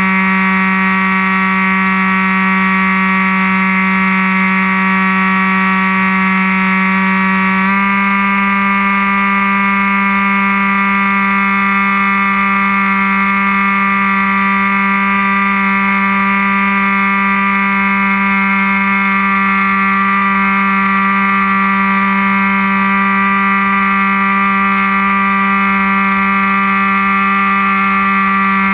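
Brushless outrunner electric motor and 7x5 propeller of an RC plane whining steadily under power, heard from on board; the pitch steps up slightly about eight seconds in as the throttle is nudged.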